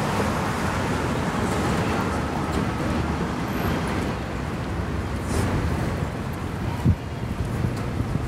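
Steady road traffic noise from passing cars, with a short low thump about seven seconds in.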